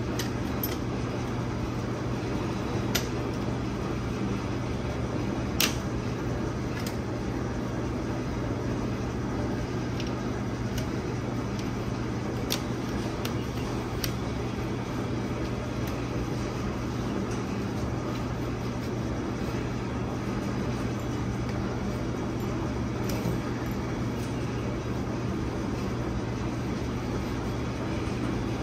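Steady low machine hum, with a few scattered sharp clicks and taps of tools and parts as a turbocharger is fitted by hand onto a 6.0 Powerstroke diesel engine.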